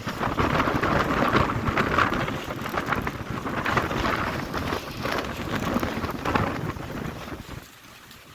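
Gusty wind blowing hard across the microphone, a rough rushing noise that rises and falls and dies down near the end.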